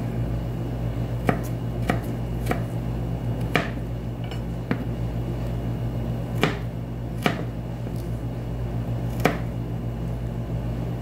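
Kitchen knife cutting ginger into thin strips on a cutting board: about eight separate sharp knocks at irregular intervals, over a steady low hum.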